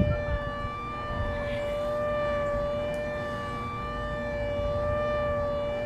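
A steady, held tone at a nearly constant pitch with several overtones, over a low noisy rumble.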